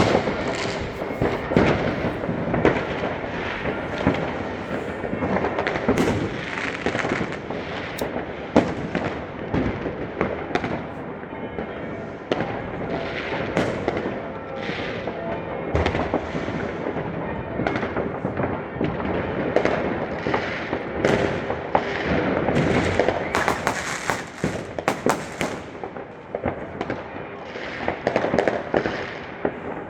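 New Year's Eve fireworks and firecrackers going off all around in a dense, continuous barrage of overlapping bangs and crackles, with no pause.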